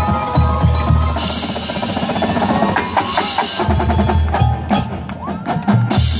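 A drum corps percussion section plays: marching snare, tenor and bass drums with front-ensemble marimbas. A hissing wash sounds from about one to three seconds in, over steady low drum hits and sharp strokes.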